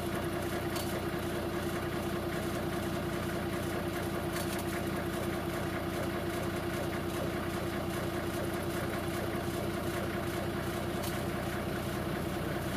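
Engine idling, a steady, even drone that does not change.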